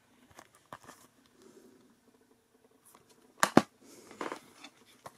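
Plastic Blu-ray case being handled: faint scattered clicks and rustling, with two sharp clicks close together about three and a half seconds in.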